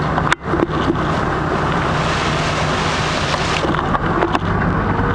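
A fishing boat's engine hums steadily under wind and water hiss. The hiss swells from about two seconds in and cuts off sharply a little over a second later.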